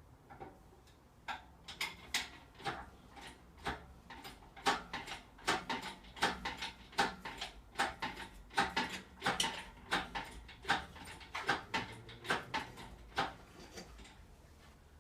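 A run of irregular clicks and knocks, roughly two or three a second, starting about a second in and stopping near the end.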